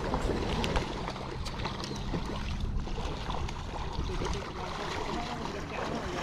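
River water flowing steadily, with a low rumble underneath and a few faint scattered clicks.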